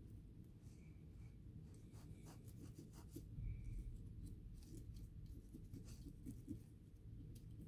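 Faint scratching and rubbing of a cotton swab scrubbing the inside of a Ringfield motor's end housing with contact cleaner, in small irregular strokes over a low steady hum.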